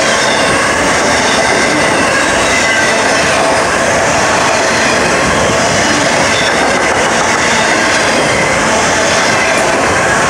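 Freight train of autorack cars passing close at speed: a loud, steady noise of steel wheels running on the rails.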